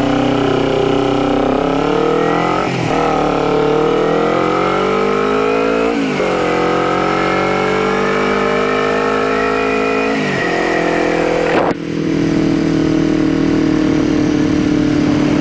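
Kawasaki Ninja 250R's parallel-twin engine accelerating through the gears: the pitch climbs and drops sharply at each of three upshifts. After a brief dip about three-quarters of the way through, it settles into a steady, lower-pitched cruise.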